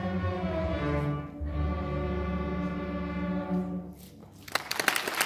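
String orchestra of violins, cellos and double basses playing the close of a piece. A long held final chord cuts off nearly four seconds in, and audience applause breaks out about half a second later.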